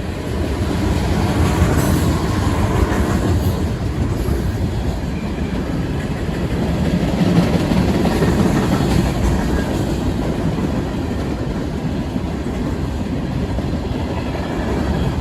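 Loud, steady rumbling noise, heaviest in the low range.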